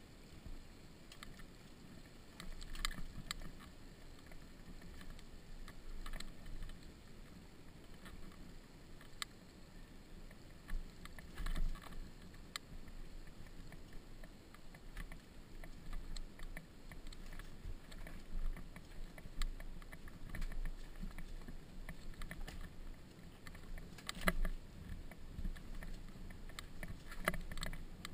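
Dirt bike riding down a rocky, dusty dirt track: a steady low rumble with scattered knocks and rattles as it goes over stones.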